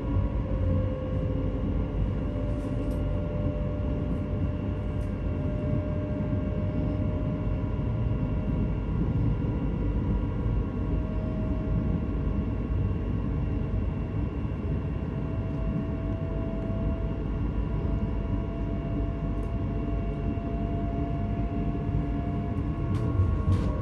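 Electric train running, with a steady low rumble and a motor whine that drifts slightly in pitch and starts rising near the end.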